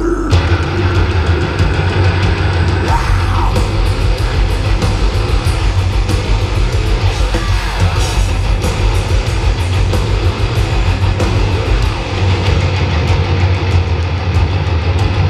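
Live heavy metal band playing at full volume: distorted electric guitars, bass and pounding drums, with a held sung note in the first few seconds.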